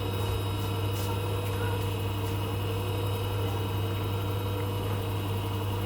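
Repaired Hoover washing machine running, its motor giving a steady, even hum as the drum spins again.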